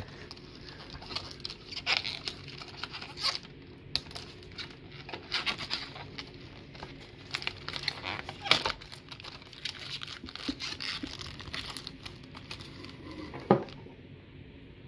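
Plastic shrink wrap around a tray of soup cans being slit and torn, crinkling and crackling in irregular scratchy bursts, with a couple of sharper knocks about halfway and near the end.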